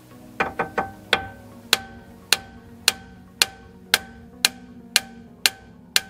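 Hammer blows on a Mercedes W204's front steering knuckle, knocking loose the lower control arm's ball-joint stud, which is stuck in the knuckle. A few quick taps come first, then steady blows about two a second, each ringing briefly.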